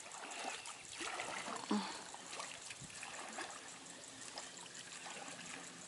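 River water running and trickling steadily.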